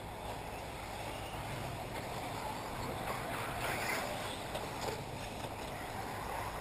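Electric 1/8-scale RC off-road buggies running on a dirt track, heard as a steady rushing noise that swells briefly about three to four seconds in.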